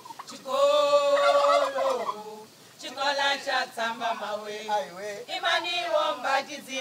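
A group of voices singing: one long held note about half a second in, then a string of short sung phrases after a brief pause.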